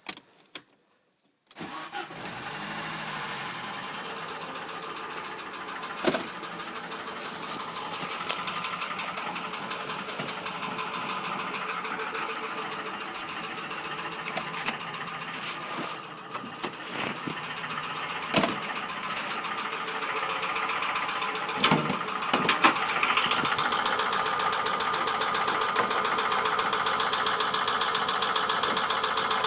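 A Ford Sierra 2.0 OHC four-cylinder carburettor engine starts about a second and a half in and runs with a knock in the engine. It gets a little louder in the last few seconds, and a few sharper single knocks stand out.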